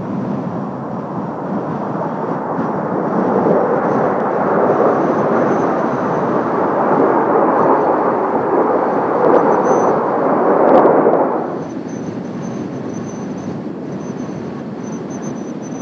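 Jet noise from Blue Impulse Kawasaki T-4 trainers' twin turbofan engines on a pass, a broad rush that builds for about ten seconds to a peak and then drops away sharply, leaving a lower steady rush.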